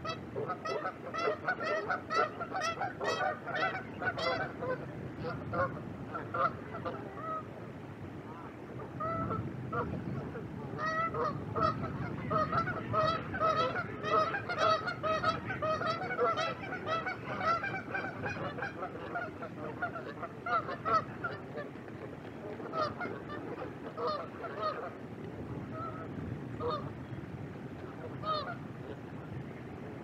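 A large flock of waterfowl honking, many overlapping calls, busiest at the start and again around the middle, thinning out toward the end.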